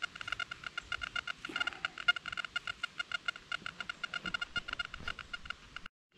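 Rapid, steady electronic beeping at one fixed pitch, many short beeps a second, from a metal-detecting pinpointer held near metal. The beeping cuts off abruptly just before the end.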